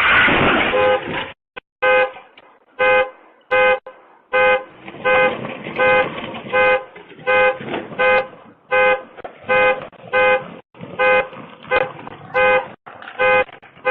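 The tail of a loud crunching crash dies away in the first second or so. Then a car alarm sounds the car's horn in short, evenly spaced blasts, about one and a half a second, set off by the crash.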